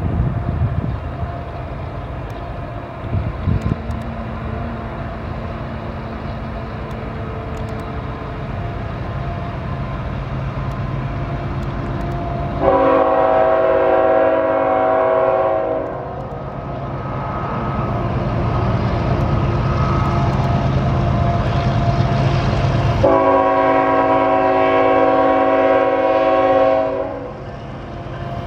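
CSX Tier 4 locomotive approaching, its diesel rumble building steadily. Its multi-chime air horn sounds two long blasts of about three to four seconds each, one about halfway through and one near the end, as a warning for the road crossing ahead.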